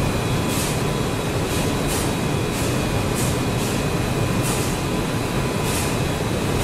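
Steady machinery noise of a car-body pretreatment spray tunnel, with faint steady whines and short hisses of spray coming every half second to a second.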